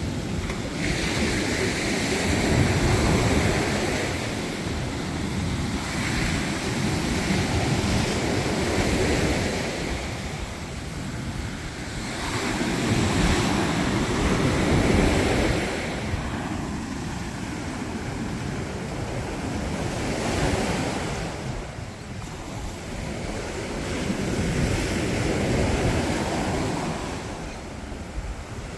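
Mediterranean Sea waves breaking and washing on the shore, swelling and easing every few seconds, with wind buffeting the microphone.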